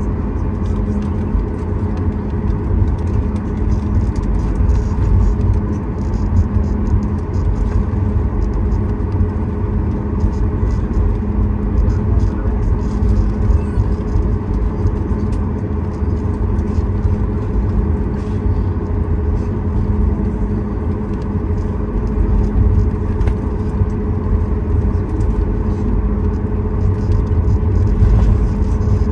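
Inside the cabin of a Boeing 737 MAX 8 taxiing: a steady low rumble from its CFM LEAP-1B engines at taxi power and the aircraft rolling along the taxiway, with a steady hum over it.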